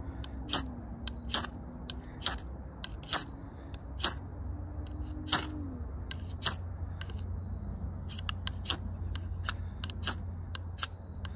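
Steel knife spine scraped hard down a ferrocerium rod, a short sharp rasp about once a second, sometimes two close together, striking sparks to light tinder.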